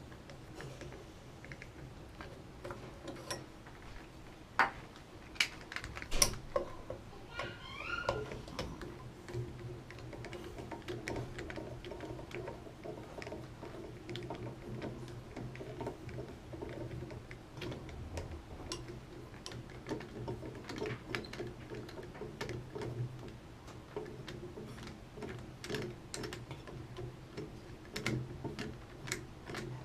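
Irregular small metal clicks, taps and scrapes of hand tools working on the shower diverter valve's fittings, with two sharp louder clicks about five and six seconds in, over a steady low hum.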